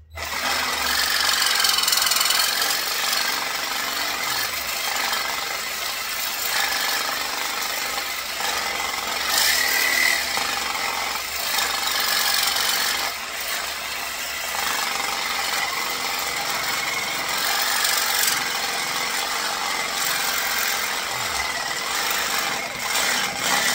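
Reciprocating saw (Sawzall) cutting through the metal bolts that run through a large transformer, starting suddenly and running continuously with an uneven, rasping cut.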